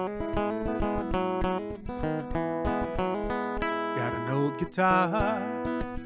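Acoustic guitar strummed in a steady rhythm as a song's intro, with a man's singing voice coming in about four seconds in.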